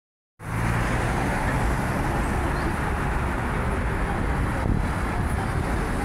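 Steady city road traffic: cars driving through a multi-lane intersection with a continuous low rumble of engines and tyres, starting about half a second in.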